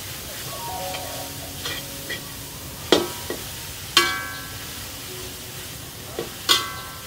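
A metal spatula stirring and scraping shredded pork in a metal wok for pork floss, over a steady hiss. Several sharp metal-on-metal clinks of utensils against the cookware, the loudest about three and four seconds in, each ringing briefly.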